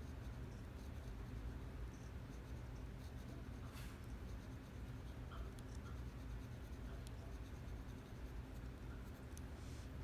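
A pencil scratching on paper in short strokes, filling in small dark shapes. Faint, over a steady low hum.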